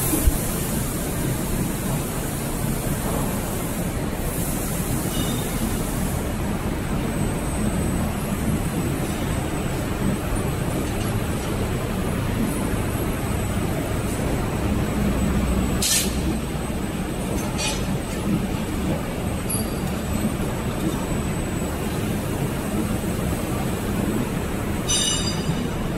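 Stack-type flexo printing press running steadily: an even mechanical noise from the turning print rollers and paper web drive, with a few faint clicks partway through.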